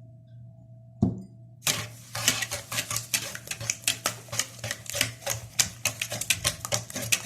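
Eggs and sugar being beaten in a bowl, the beater knocking once and then clicking rapidly and unevenly against the bowl.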